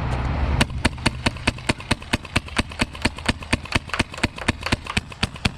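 Custom G36KV magfed paintball marker firing in semi-auto: a rapid, even string of about two dozen shots, about five a second, with a short stretch of steady noise before the first shot.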